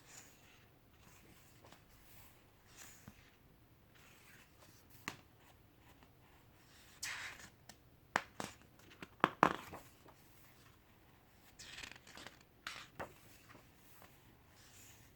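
Pages of a photo essay book being turned and handled: soft paper swishes, with a cluster of sharp taps and rustles about eight to ten seconds in.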